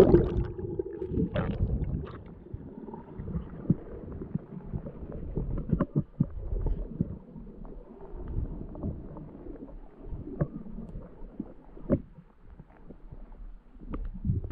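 Muffled underwater sound from a submerged action camera. It opens with a loud splash as the camera plunges under, then a low, murky water rumble with scattered light clicks and knocks.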